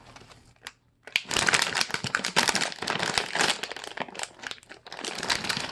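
A plastic snack bag crinkling as it is handled and opened, starting about a second in.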